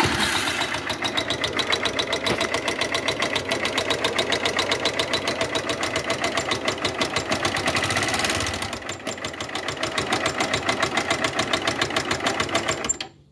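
Honda CG150 New Titan single-cylinder four-stroke engine running near idle with a rapid, even clicking from the top end, briefly picking up speed about eight seconds in. The noise comes from rocker arms that seized from friction and heat through lack of oil, damaging the camshaft.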